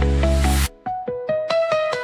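Electronic background music: a bass-heavy beat cuts out about half a second in, followed by a rising sweep and a run of short melodic notes climbing in pitch.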